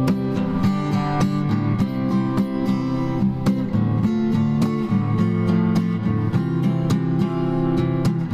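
Background music led by a strummed acoustic guitar, with chords struck in a steady rhythm.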